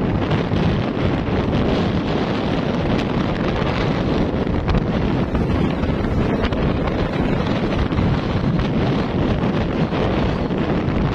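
Steady wind buffeting a microphone on a moving motorcycle: a dense, unbroken rushing noise, heaviest in the low end.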